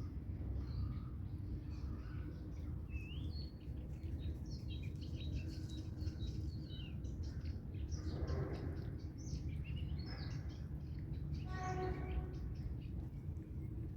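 Small birds chirping repeatedly over a steady low background rumble, with two short pitched calls about 8 and 12 seconds in.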